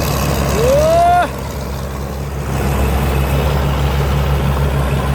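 Six-cylinder turbo Cummins diesel engine of a combine harvester running steadily with an even low pulse. A brief rising tone sounds about a second in and cuts off sharply.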